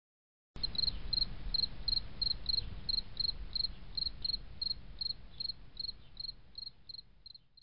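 A cricket chirping steadily, about three short high chirps a second, over a low rumbling hum; it starts about half a second in and fades away near the end.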